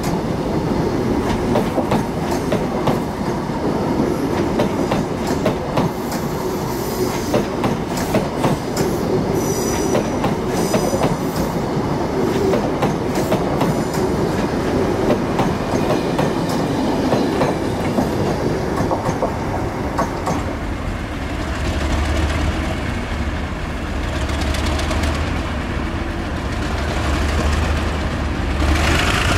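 Greater Anglia Mark 3 coaches of a Class 90-hauled InterCity train rolling past at low speed as it departs, wheels clicking over rail joints with some wheel squeal. About two-thirds of the way through it gives way to the low steady hum of a Class 37 diesel locomotive's English Electric V12 engine idling.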